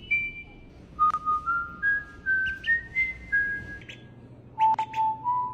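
A whistled tune in phrases of short, steady, pure notes that climb step by step. One phrase starts about a second in and another near the end, each opening with a sharp click.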